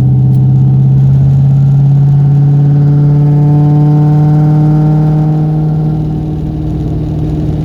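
1998 Mustang Cobra's 4.6-litre DOHC V8 pulling under light throttle while driving, its note rising slowly in pitch, then easing off a little about six seconds in.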